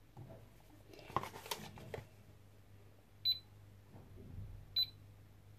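A SilverCrest digital kitchen scale beeping twice, about a second and a half apart, as its button is pressed to zero it with the bowl on it. Before the beeps, about a second of rustling and light taps as cornstarch is poured from its cardboard box into a stainless steel bowl.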